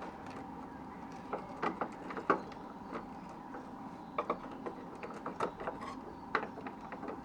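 Irregular clicks and light knocks of plastic headlamp parts being handled and fitted back together, a dozen or so scattered sharp taps over a faint steady hum.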